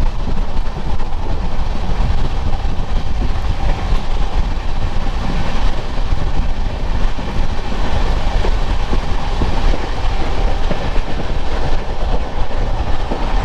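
Passenger express train in motion heard from on board: loud, steady rumble and rattle of the wheels running on the track.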